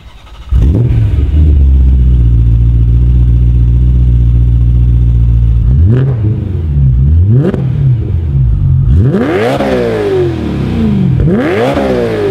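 Supercharged BMW E92 M3's S65 V8, on a catless Megan Racing exhaust, firing up and idling steadily, loud. It is then revved in place: two short blips, followed by two longer, higher revs, each dropping back to idle.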